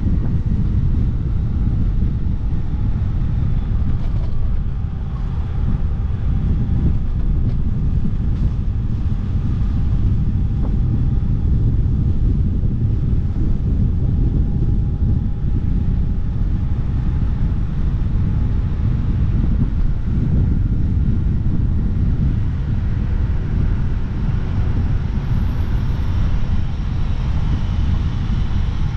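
Steady wind and road rumble on the microphone of a camera riding on a moving vehicle, with a faint, even engine drone underneath.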